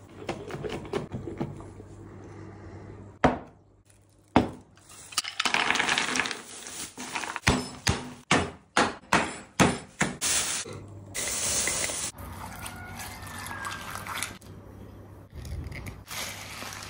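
Ice in a plastic bag being broken up by striking it with a heavy brass object on a wooden board: a run of about a dozen sharp knocks, several in quick succession, mixed with handling noise of a glass jar.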